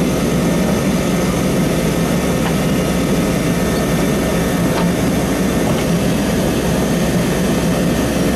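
A propeller airplane's engines running steadily at taxi power, heard from inside the cabin with a constant low drone.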